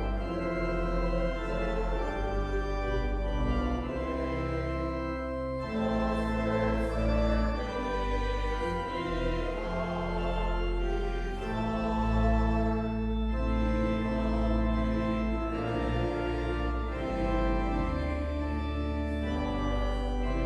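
Church organ playing sustained chords over deep bass notes that change every few seconds.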